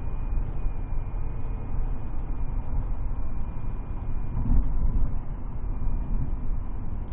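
A motor vehicle running with a steady low rumble and a faint, steady high-pitched whine over it.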